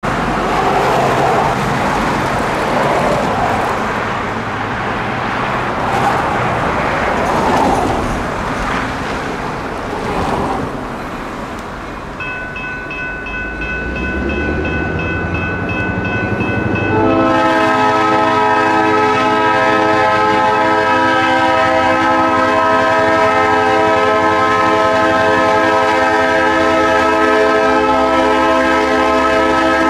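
Diesel locomotive's Nathan P3 air horn. A fainter tone starts about twelve seconds in, then a loud chord begins about five seconds later and is held as one long, steady blast. Before the horn there is an uneven rushing noise.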